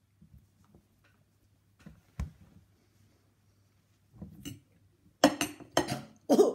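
A light knock about two seconds in, then a woman gagging in disgust at a mouthful of gelatin fish loaf: several short, harsh bursts near the end.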